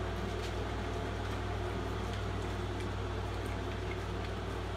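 A steady low mechanical hum under an even background hiss, with faint scattered soft clicks.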